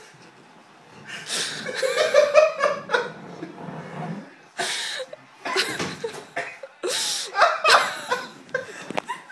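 Men laughing hard in uneven bursts, with a few sharp knocks among the laughter.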